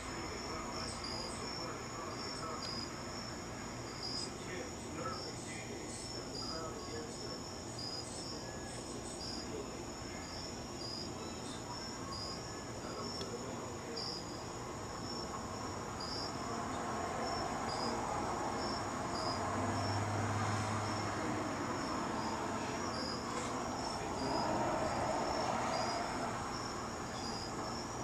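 Crickets chirping: a steady high trill with regular chirps about once a second. A louder low rushing noise swells from a little past halfway and fades near the end.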